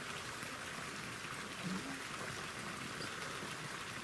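Steady, even outdoor background hiss, with a brief faint hum of a voice about a second and a half in.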